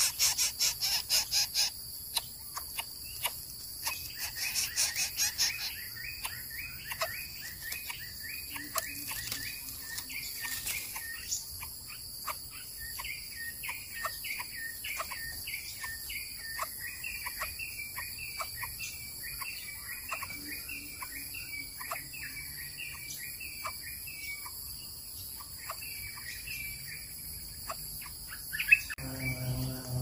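Short high chirps repeating two or three times a second, over a steady high-pitched insect drone; a loud pulsing insect trill opens it and stops after about a second and a half.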